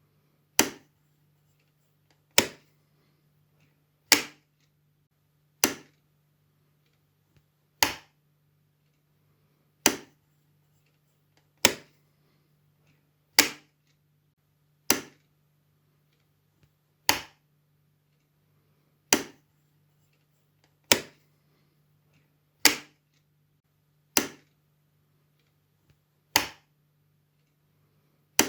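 Wall light switch flipped on and off, a sharp click every one and a half to two seconds, about sixteen in all.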